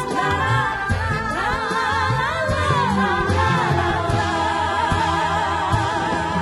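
Live dangdut music: a woman's voice singing an ornamented melody with heavy vibrato over a steady drum and bass beat.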